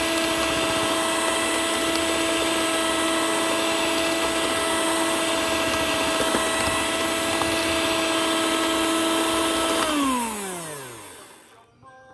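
Electric mixer grinder running steadily while grinding sugar into powder. About ten seconds in it is switched off, and the motor's pitch falls as it winds down.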